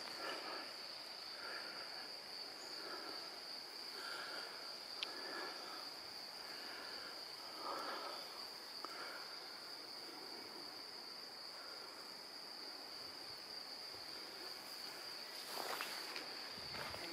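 Quiet woodland ambience: a steady high-pitched insect drone with soft scattered chirps, and a few footsteps on the forest floor near the end.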